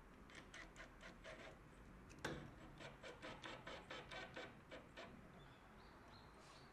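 Faint, quick scraping strokes on wood, about four or five a second, in two runs, with one sharp click about two seconds in: hand work on the shed's wooden door frame.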